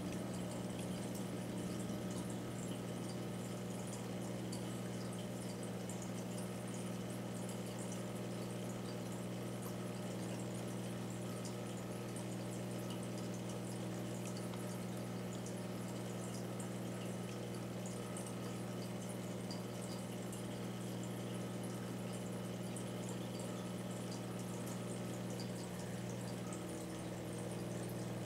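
Aquarium pump running: a steady low hum with water trickling and bubbling faintly over it.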